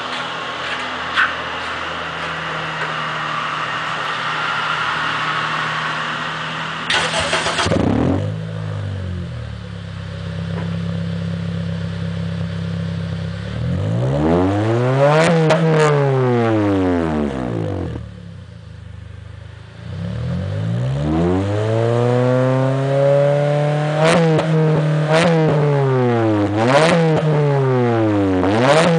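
2007 Honda Accord's four-cylinder engine running through an HKS Hi Power titanium exhaust, heard at the tailpipe: it idles and is revved several times, with one long rise and fall about halfway through and a run of quick blips near the end. There is a short loud burst about seven seconds in.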